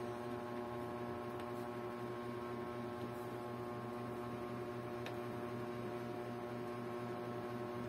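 Ceiling fan running: a steady electrical hum of several even tones over a soft hiss.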